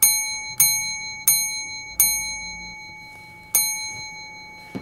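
A small bell struck five times on the same note, each strike ringing on and slowly fading: four strikes in quick succession, then one more after a pause.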